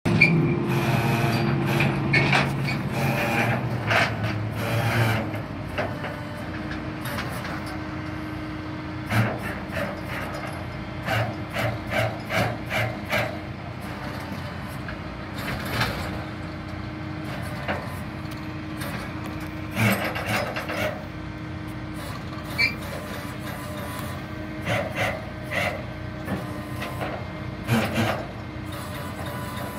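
Tow truck's engine running steadily at idle, louder for the first few seconds, with scattered short knocks and scrapes over it.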